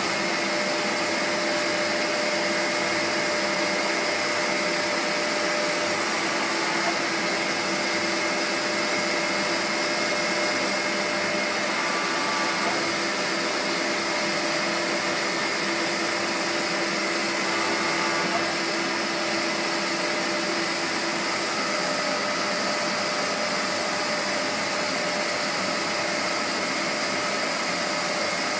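MAHO CNC universal milling machine running while its rotary table turns: a steady machine whir with a few thin steady tones in it that drop out and come back.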